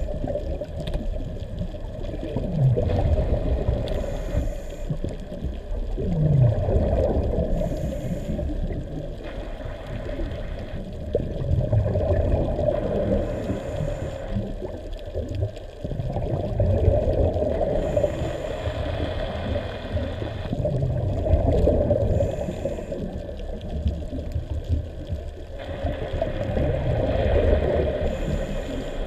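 Muffled underwater rumble with gurgling bubbles that swell every few seconds, in the rhythm of a scuba diver breathing through a regulator, heard through an underwater camera housing.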